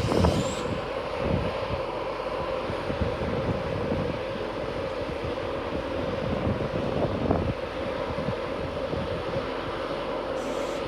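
A train's engine or traction equipment at the station, droning steadily with a held mid-pitched tone over a low rumble, a sound likened to a Star Wars TIE fighter.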